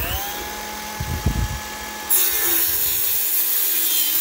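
Circular saw with a carbide-tipped woodworking blade finishing its spin-up and running free with a steady whine. About two seconds in, it bites into aluminum angle stock and the sound jumps to a loud, bright cutting screech over the motor.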